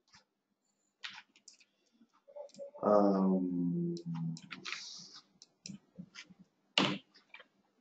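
Computer keyboard typing, scattered key clicks while a class name is entered. About three seconds in, a brief hum from a person's voice stepping down in pitch, and a single sharper click near the end.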